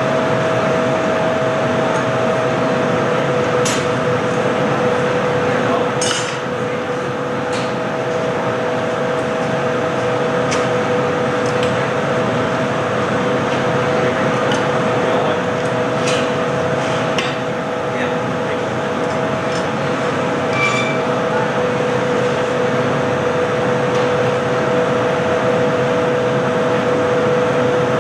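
Steady noise of hot-glass studio equipment, with two steady hums in it and a few light metallic clinks of glassworking tools scattered through.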